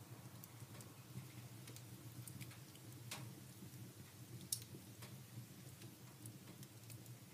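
Wood fire in a fireplace crackling faintly, with scattered sharp pops, the loudest about four and a half seconds in, over a low steady hum.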